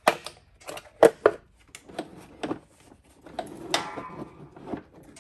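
Old plastic top cover of a 40 V Greenworks-built battery lawn mower being pried and flexed off its clips: a series of sharp plastic clicks and knocks, the loudest about a second in, with a short creak a little before four seconds.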